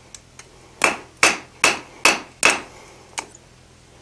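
Blacksmith's hand hammer striking a steel hook blank on an anvil: two light taps, then five heavy blows about two and a half a second, each ringing briefly, and one lighter tap near the end.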